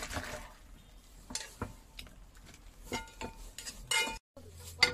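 Hot soup with cabbage and meatballs poured from one stainless steel pot into another, splashing at first, then several light metal clinks of pot rims and chopsticks, each ringing briefly.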